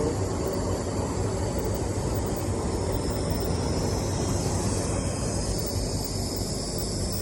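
Laser welding machine running: a steady low hum with a steady high hiss over it.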